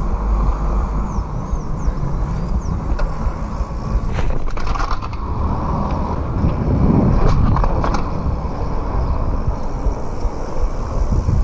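Wind rushing over an action camera's microphone as a downhill mountain bike rolls over paving, its tyres rumbling, with several sharp knocks and rattles from the bike over bumps; the roughest, loudest stretch comes about six to eight seconds in.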